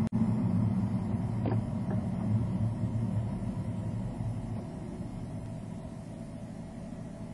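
Low, steady road and engine rumble of a car heard inside the cabin, growing gradually quieter through the stretch, with a brief cut-out in the sound just after the start.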